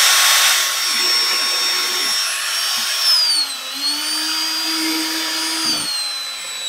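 Ridgid cordless drill running with a small bit, boring through the bottom of a plastic 5-gallon bucket. The motor's whine holds steady, dips in pitch a little after three seconds in, runs on slightly lower, and stops near the end.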